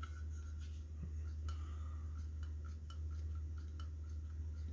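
Small scattered clicks and ticks of shotgun parts being handled and worked to check that a mechanism still functions, over a steady low hum.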